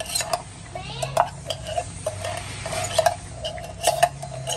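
A few sharp metal clinks from a fork knocking against an opened tin can as canned mushrooms are shaken out into the pot, with voices murmuring behind.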